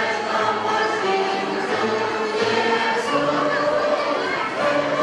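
Mixed choir of men and women singing, holding long notes.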